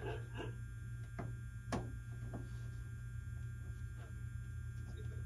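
Steady low electrical hum, with a few small clicks and taps from hardware being handled while a wing strut is fitted under the top wing of a model biplane. The sharpest click comes nearly two seconds in.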